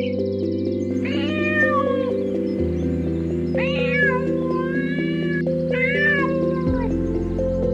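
Cat meowing three times, the middle meow the longest, over steady background music.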